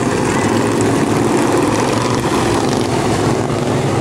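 Engines of several racing lawn mowers running hard together in a loud, steady drone.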